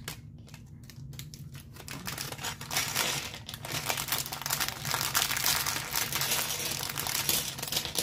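Plastic packaging crinkling, with small plastic building-set pieces clicking as they are handled and sorted. It grows louder and denser from about two and a half seconds in.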